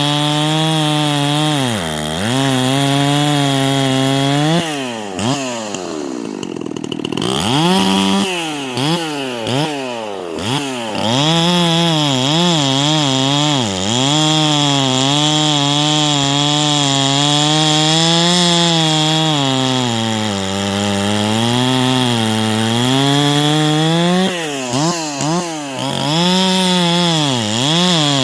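Holzfforma G366 two-stroke chainsaw running at high revs while cutting wood, its engine speed wavering as it bogs and recovers under load. About five seconds in it drops off and then revs back up, and later it dips briefly a few more times.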